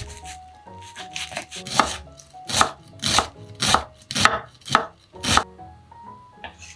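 Kitchen knife mincing an onion on a wooden cutting board: a few light cuts, then about seven firm chops, roughly two a second, that stop about five and a half seconds in.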